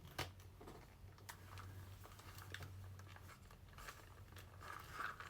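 Faint, scattered clicks and light knocks of hard plastic toy parts being handled, as the Ryder figure is fitted onto his toy quad bike, with a little rustling near the end.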